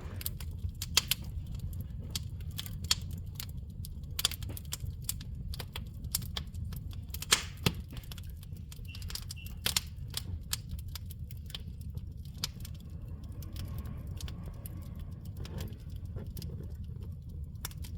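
Steady low rumble with many light, irregular clicks and small rattles, several a second, like small metal parts jangling.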